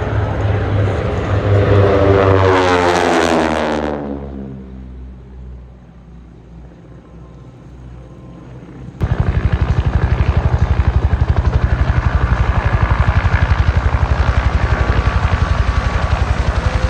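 An aircraft making a fast low pass, its engine note dropping steeply in pitch as it goes by and then fading away. About nine seconds in, the sound cuts abruptly to a loud, steady aircraft sound close by, beating with a fast, even rhythm.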